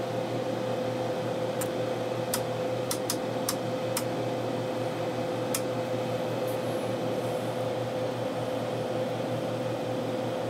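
Steady hum and whir of running test-bench electronics, with a constant mid-pitched tone throughout. A few sharp clicks come in the first half.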